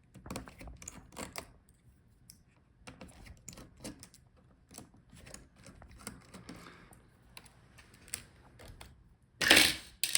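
Irregular light clicks and taps of a screwdriver and small metal and plastic parts while laptop hinge screws are taken out, with a louder clatter near the end.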